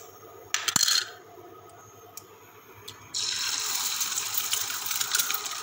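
A raw egg cracked against the rim of a nonstick frying pan: a sharp knock and crackle of shell. About three seconds in, the egg drops into the hot oil and it starts sizzling steadily and loudly.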